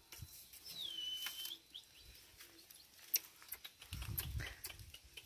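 A high whistled call that drops, then holds steady for about a second, among scattered short chirps and sharp clicks, with a low rumble near the end.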